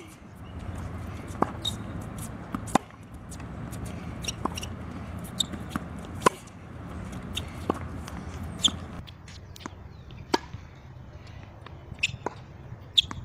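Tennis rally on a hard court: sharp pops of racket strings striking the ball and the ball bouncing, about one every second, over a low background rumble that drops away about nine seconds in.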